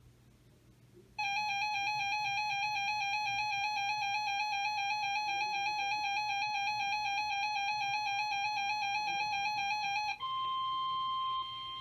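Emergency alert tones: the Emergency Alert System attention signal sounds as a loud, steady electronic tone for about nine seconds. About ten seconds in it switches to a single higher steady tone, the NOAA Weather Radio warning alarm tone, which drops in level shortly before the end.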